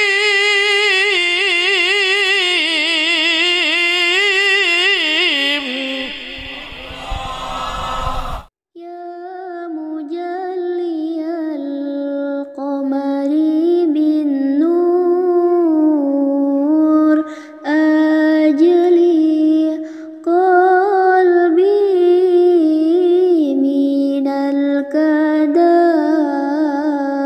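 A solo male voice recites the Quran in the melodic tilawah style, with long, wavering, ornamented held notes. About eight seconds in it cuts off, and after a brief gap another male reciter continues in long, ornamented phrases with short pauses between them.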